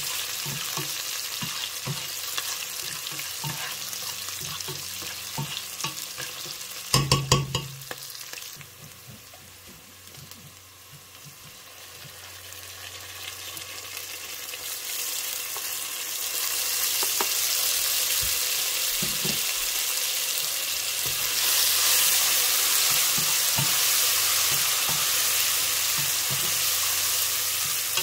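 Sliced onions and green chillies sizzling in hot oil in a nonstick pot while a spatula stirs and scrapes them, with a few sharp knocks about a quarter of the way in. The sizzle dies down for a few seconds, then grows louder from a little past halfway, once ginger-garlic paste goes into the oil.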